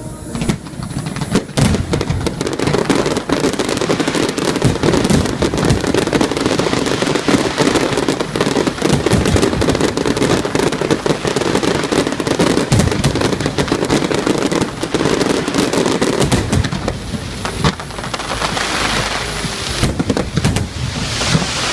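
Fireworks display: a rapid, dense barrage of bangs and crackling that thins out to a lighter fizzing crackle about three-quarters of the way through.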